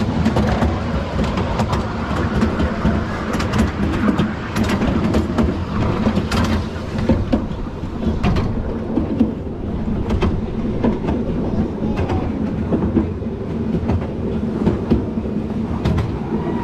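Miniature railway train running along the track, heard from an open passenger carriage: a steady rumble of wheels on rail with irregular clicks and clacks from the wheels.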